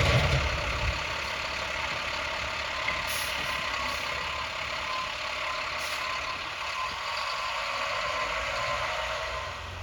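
A heavy vehicle's engine fades away within the first second, followed by a steady hiss of street noise from traffic on the snowy road.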